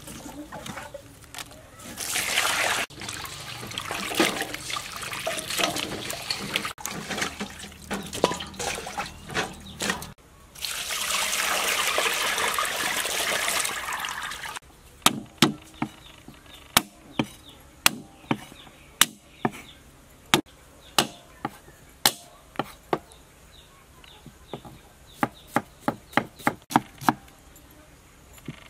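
Water sloshing and splashing in a stainless steel bowl as herbs and aromatics are washed, with a loud steady pour from about ten seconds in as they are drained into a colander. Then a kitchen knife slicing red onion on a wooden chopping board: sharp taps, irregular at first and quicker near the end.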